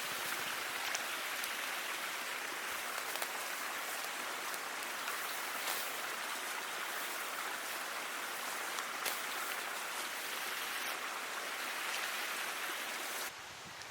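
Steady hiss of water with scattered faint ticks like drops; it drops off abruptly near the end.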